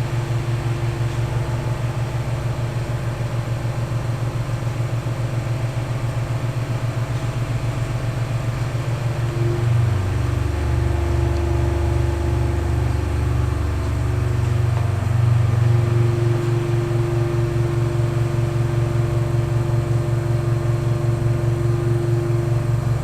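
Keio 8000-series electric train running, heard from inside the car: a continuous low rumble of wheels and running gear with a fast flutter. About ten seconds in, a steady motor tone joins and holds for most of the rest, and a deeper rumble swells for a few seconds.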